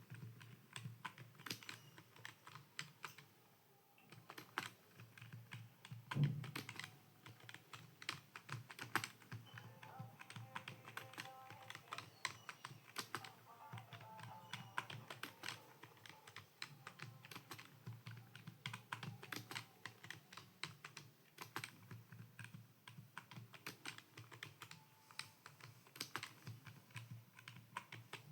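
Computer keyboard being typed on at a steady pace: a continuous stream of key clicks, with one heavier thump about six seconds in.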